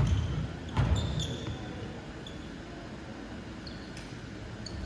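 Volleyball play: a sharp hit of the ball at the start and another about a second in, with a couple of short high squeaks, then a quieter stretch of the hall's background noise.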